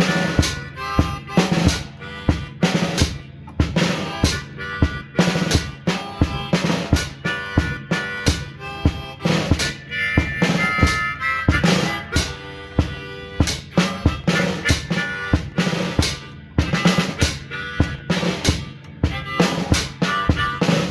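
Hohner Piedmont Blues diatonic harmonica played blues-style through a bullet microphone, over a steady drum beat. The harp's held notes are strongest about halfway through.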